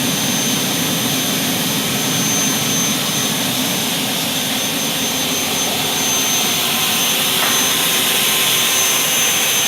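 Double-head aluminium cutting saw running steadily in its automatic cutting mode: the blade motors give a constant roar with a high whine held on one note.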